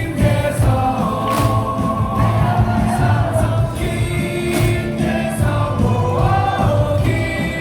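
Baseball crowd in the cheering section singing a batter's cheer song in unison over loud stadium PA music with a steady beat and a crash about every three seconds.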